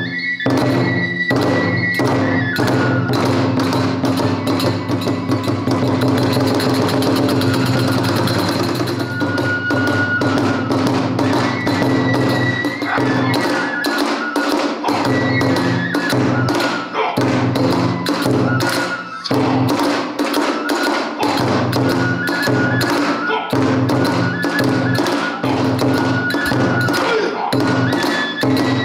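A kagura hayashi ensemble playing fast dance music. A large ōdō barrel drum and small hand cymbals strike a quick, driving beat, under a high bamboo flute melody of held notes.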